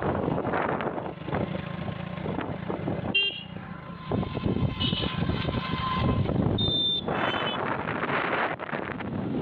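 Road and wind noise from a moving motorcycle, the wind buffeting the microphone, with short vehicle-horn beeps about three seconds in and again near seven seconds.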